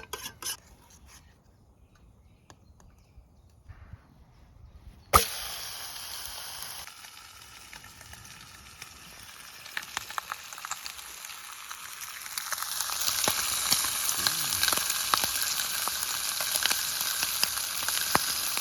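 Eggs sizzling in a hot pan as they are scrambled. The sizzle starts suddenly about five seconds in after a few light clicks, grows louder from about twelve seconds in, and is dotted with small clicks of the utensil working the eggs.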